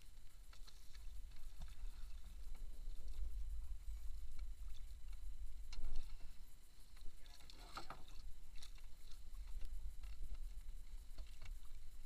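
Water lapping against a small outrigger boat as it rocks on the sea, over a steady low rumble, with scattered light knocks and clicks and a louder knock about six seconds in.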